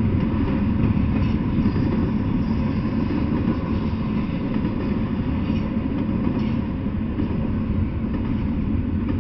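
Double-stack intermodal freight train rolling past at steady speed: a continuous low rolling noise from the wheels of the container well cars on the rails.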